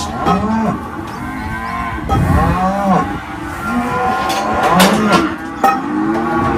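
Several cattle mooing over one another in a stockyard race, with a couple of sharp knocks from the steel crush and yard rails, the loudest about five and a half seconds in.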